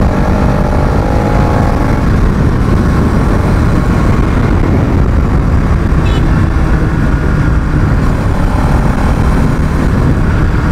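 Bajaj Pulsar NS200's single-cylinder engine running at a steady cruise of about 60 km/h. Heavy wind and road noise on the microphone.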